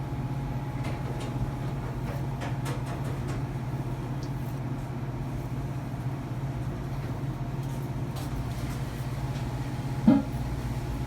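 A steady low machine hum, with faint scattered clicks and one sharp knock about ten seconds in.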